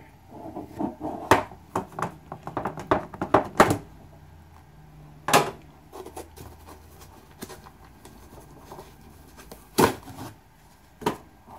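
Hands handling a diecast model's packaging, a cardboard sleeve and a tin case, turning it over. A quick run of small clicks and scrapes is followed by a few sharper single knocks about five and ten seconds in.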